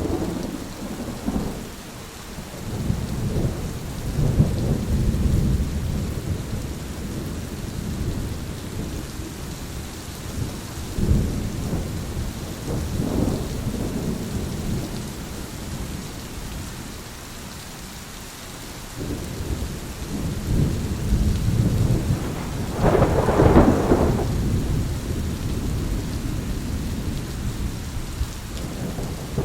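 Thunderstorm: steady rain hiss with rolling thunder rumbling again and again, the loudest, sharpest peal about 23 seconds in.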